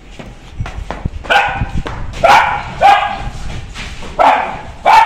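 A dog barking repeatedly: five loud barks at uneven intervals, the first about a second in.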